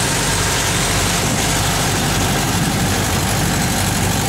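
Engine of a passenger motor boat running steadily, heard on board with a low hum under a constant hiss of wind and water.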